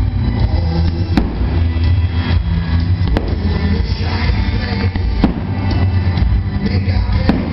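Loud music with a heavy bass, over a fireworks display. Sharp cracks come about every two seconds.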